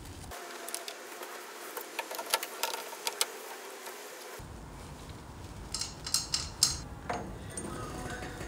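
Scattered light clicks, taps and scraping from hand work on small parts, with no steady machine running.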